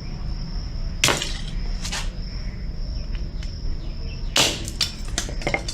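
Hammer blows on a plastic power adapter: two sharp, loud strikes about a second in and about four seconds in, a weaker hit between them and a few lighter knocks near the end.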